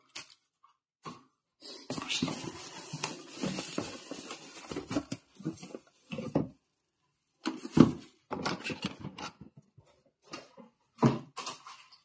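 Bubble wrap around a pair of desktop speakers crinkling and rustling as they are lifted out of a cardboard box, in bursts with short pauses. A sharp knock about eight seconds in as a speaker is set down on the desk.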